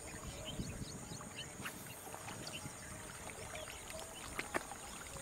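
Faint splashing of a hollow-body frog lure being pulled across the water surface, with a few brief splashes. Many short high chirps go on all through.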